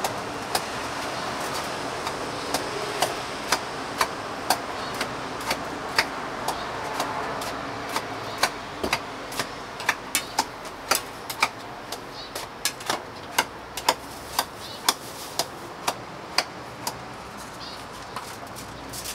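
Repeated sharp knocks and taps of kitchen utensils while street toast is cooked, irregular and coming faster, about two a second, through the middle of the stretch, over a steady hiss.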